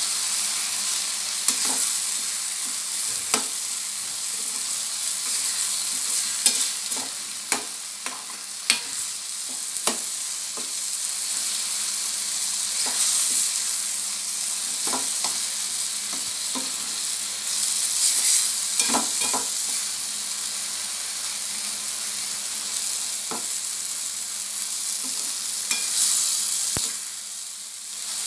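Tomato gojju frying in oil in a non-stick pan, sizzling steadily as a metal ladle stirs it, with sharp clicks and scrapes now and then where the ladle knocks against the pan.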